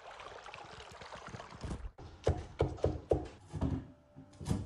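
Cleaver chopping herbs and scallions on a wooden chopping board: a run of uneven, sharp knocks that starts about halfway in, after faint background noise.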